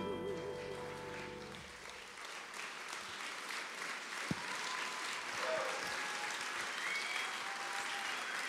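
Audience applauding as the last held chord of the music dies away about one and a half seconds in; one sharp thump sounds through the clapping near the middle.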